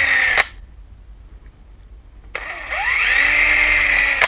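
Cordless drill with a 2 mm bit boring pilot holes into a soft pine door edge. The motor's whine cuts off about half a second in, then spins up again a little after two seconds and runs steadily.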